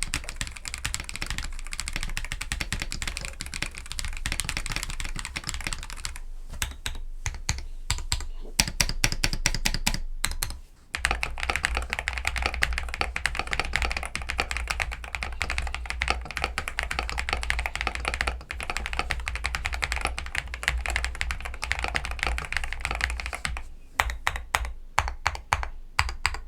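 Typing on an Akko 5075B Plus V2 gasket-mount mechanical keyboard fitted with lubed Akko V3 Cream Yellow linear switches: a fast, dense run of key clacks. It slows to separate strokes from about six to ten seconds in, stops briefly near eleven seconds, then runs fast again.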